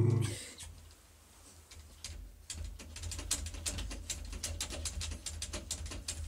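Bulldog puppy pawing at a mirror, its claws clicking and scratching rapidly, several clicks a second, from about two and a half seconds in. A short low thump at the very start.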